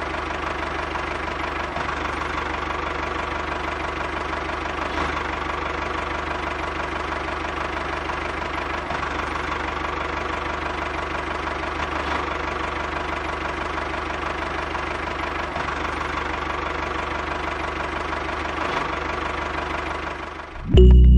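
Miniature DIY model tractor's engine running steadily at an even pace. It cuts off suddenly near the end, where music begins.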